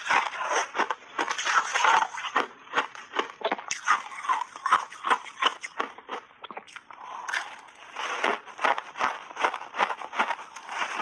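Close-miked biting and chewing of a block of frozen blueberry ice coated in matcha powder: a rapid, irregular run of sharp crunches, several a second, thinning briefly a little past the middle.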